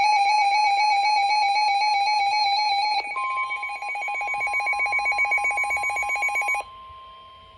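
Electronic emergency alert tones: a rapidly pulsing high beep, joined about three seconds in by a steady single tone, the weather-radio alarm tone that precedes a tornado warning broadcast. The pulsing beep cuts off suddenly about a second before the end, leaving the steady tone much quieter.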